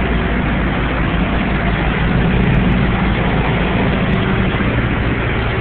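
Heavy vehicle engines running steadily, a low hum under a constant noisy wash.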